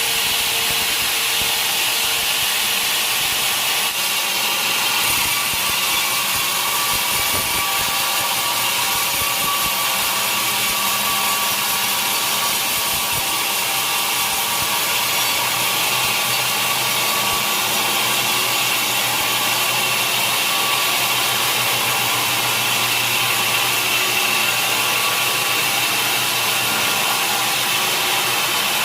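Sawmill saw cutting steadily through a large mahogany log, a continuous loud, high-pitched hiss with no break.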